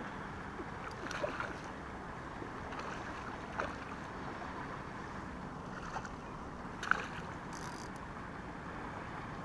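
Steady low wind-and-water noise with a few brief splashes from a hooked cutthroat trout thrashing at the surface close to the bank.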